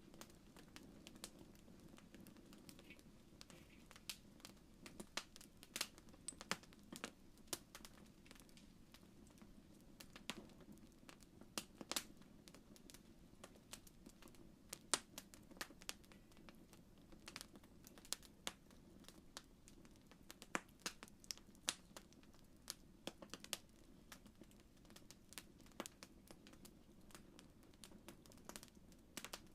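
Wood campfire crackling softly: irregular sharp pops and snaps of uneven loudness, a few standing out, over a faint steady low background.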